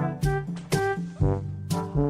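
Background music: a pitched melody over a steady beat of about two hits a second.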